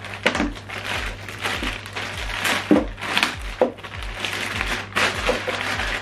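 Clear plastic packaging bag crinkling and rustling as it is handled, with dense, irregular crackles.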